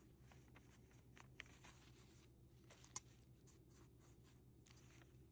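Faint, irregular scraping of a kitchen utensil, over a low steady hum.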